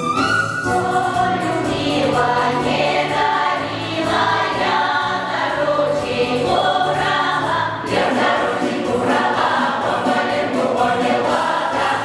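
Russian folk choir of men and women singing together in several parts, without a break.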